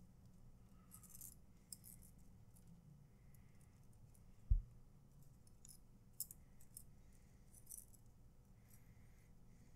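Faint rustling and crackling of nylon paracord being handled and pulled tight as box knots are tied, in short scattered scrapes. One dull low thump about four and a half seconds in.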